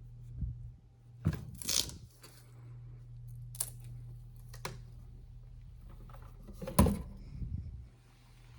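Packaging being handled by hand: a short rustle about a second in, a couple of light clicks, and a sharp knock followed by a dull thump near the end. A steady low hum runs underneath.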